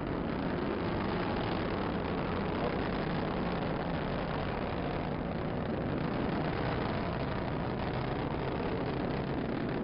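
Steady roar of an Atlas V rocket's RD-180 first-stage engine during powered ascent shortly after liftoff.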